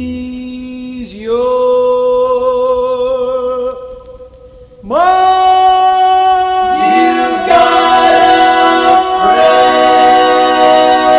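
Male vocal group singing long held notes in close harmony with little or no accompaniment. The voices fall away briefly about four seconds in, then come back on a fuller sustained chord, with more voices entering in layers.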